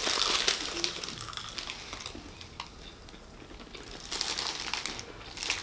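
Paper taquito wrappers crinkling as they are handled while the taquitos are bitten and chewed, in two spells: through about the first second and a half, and again about four seconds in.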